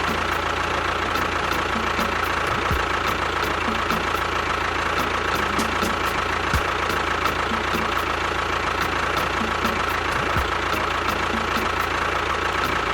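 A small motor running steadily with an even, continuous mechanical hum and whine, holding the same pitch throughout.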